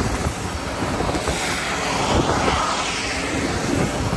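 Street misting fan blowing air and water spray: a steady loud rush, with the airflow buffeting the microphone.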